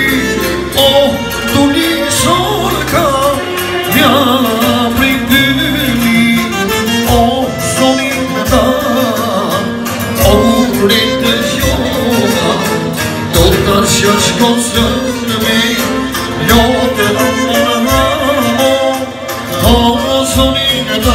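Live folk-style song: a male singer singing through a PA system, with clarinet and electric keyboard accompaniment over a steady beat.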